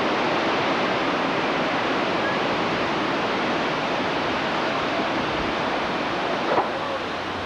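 Steady rushing noise of a storm: wind through the trees and rain coming down, with one small knock near the end.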